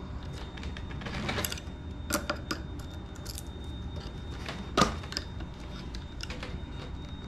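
Small clicks and taps of a screwdriver and fingers working the screw at an RC plane's propeller hub, a few scattered clicks with the sharpest one a little under five seconds in.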